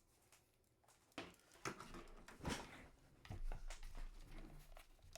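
Handling noises: a scatter of light clicks, knocks and rustles, starting about a second in.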